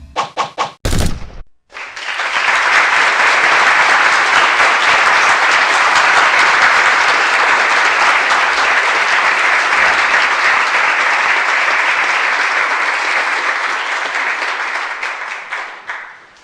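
Crowd applause: many hands clapping in a steady dense patter that swells in about two seconds in and fades out near the end. A few short sharp hits come just before it starts.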